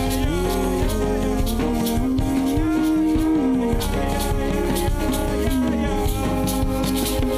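Church worship music: a steady deep bass under a slow, gliding melody line, with a faint shaker-like rhythm above.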